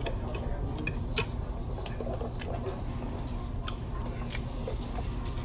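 Restaurant room noise: a steady low hum with scattered light clicks and ticks, and faint voices in the background.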